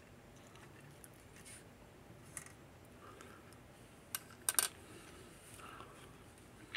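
Quiet room tone with a few light clicks, one about two and a half seconds in and a small cluster just past four seconds.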